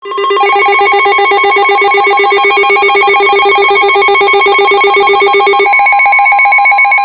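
Weather radio emergency alert alarm: a loud, rapidly warbling alarm of several tones that starts suddenly. About six seconds in, its lowest tone drops out and a steady tone near 1 kHz comes through.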